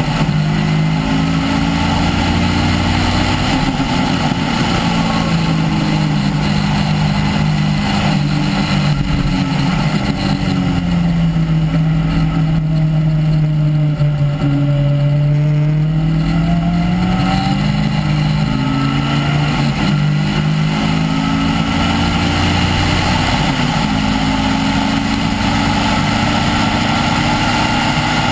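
Un-silenced Caterham R300 engine heard onboard at full track pace. The revs drop through the middle as the car slows for a tight corner, then climb again, stepping through gear changes.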